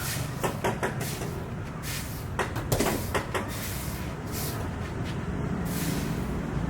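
Several short knocks and clicks over a steady low rumble with passing hiss.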